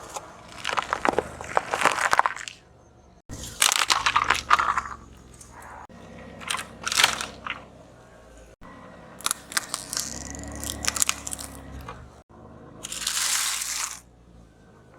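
Objects being crushed under a car's tyre: repeated crunching and crackling over a low rumble, in several short clips cut together.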